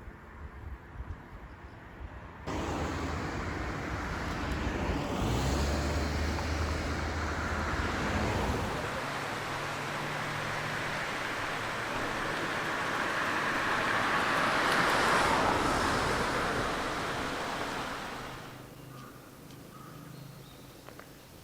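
Diesel railcar passing: a steady engine hum with rumbling wheel and rail noise. It starts abruptly a couple of seconds in, grows to its loudest near the end and fades away shortly before the end.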